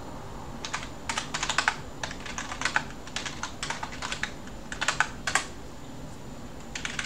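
Typing on a computer keyboard: irregular runs of keystrokes, a pause of over a second after about five seconds in, then a few more keys near the end.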